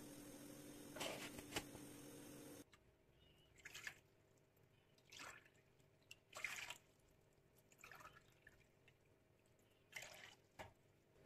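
Warm water poured from a drinking glass into a glass mixing bowl: a series of faint, short splashes a second or so apart. Before that, a steady hum with two light knocks.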